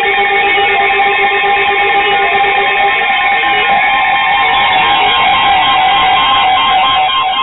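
Several NOAA weather alert radios alarming at once for a newly issued severe thunderstorm warning: a loud cluster of steady and pulsing electronic tones. A low tone drops out about three seconds in and a rising sweep follows.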